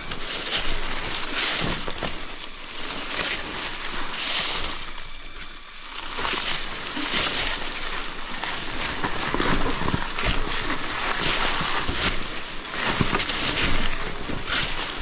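Water splashing and sloshing as an enduro dirt bike is ridden through a wet crossing, in irregular surges of spray.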